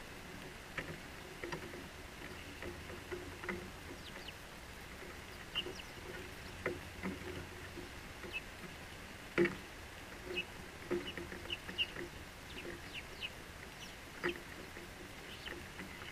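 House sparrows giving short, scattered chirps, with light taps of birds landing and hopping on the wooden fence rail close by; the loudest tap comes about nine seconds in.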